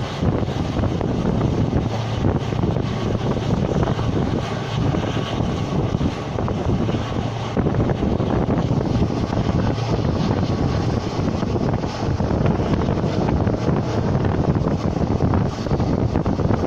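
Diesel-hauled express train running at speed, heard from on board: a steady rumble of the coach on the track with wind buffeting the microphone.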